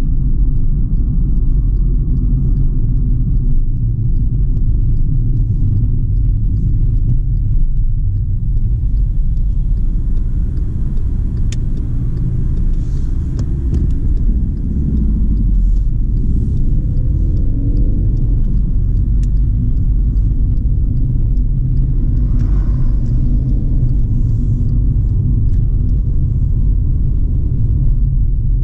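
Steady low rumble of a car being driven, heard from inside the cabin.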